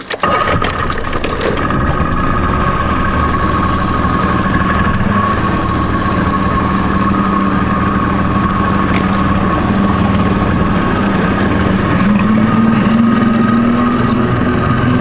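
Boat engine running steadily with a high steady whine over a low hum; the engine note rises slightly about twelve seconds in.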